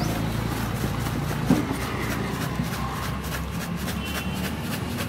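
Newspaper cone of chickpeas being shaken and handled, the paper crackling in short, irregular rustles, with one sharper knock about a second and a half in. A steady traffic rumble runs underneath.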